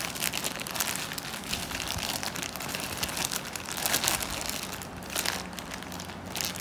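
Plastic courier bag crinkling and crackling as hands squeeze and handle it.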